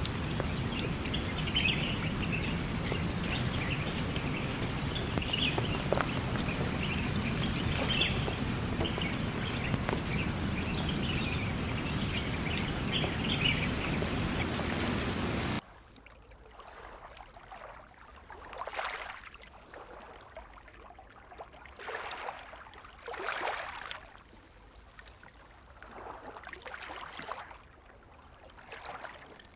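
Steady rain hiss with birds chirping over it, which cuts off suddenly about halfway through. It gives way to much quieter trickling water that swells softly every couple of seconds.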